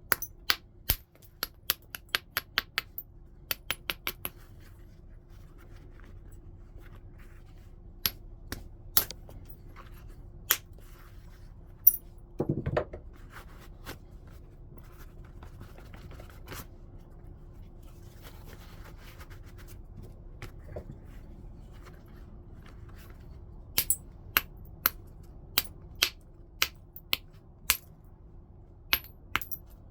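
Stone being flintknapped: sharp clicks as flakes come off the stone, in quick runs of several with pauses between, and one heavier knock about twelve seconds in.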